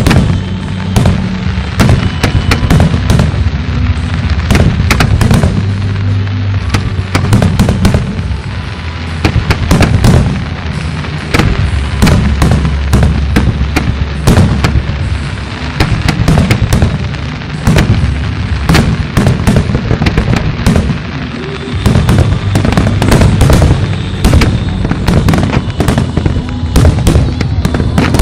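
Aerial fireworks shells bursting in rapid volleys, several sharp reports a second, over music with steady low bass notes.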